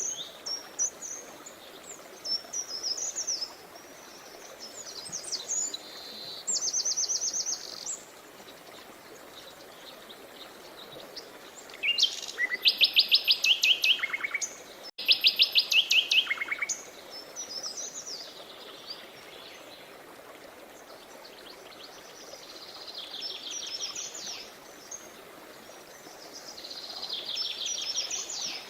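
Songbirds singing over a steady rush of flowing river water: short chirping phrases and rapid trills, the loudest a pair of fast trills about halfway through.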